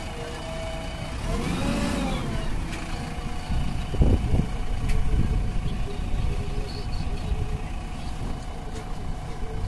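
JCB 3DX backhoe loader's diesel engine running steadily as the backhoe arm is worked, with a heavy low thump about four seconds in.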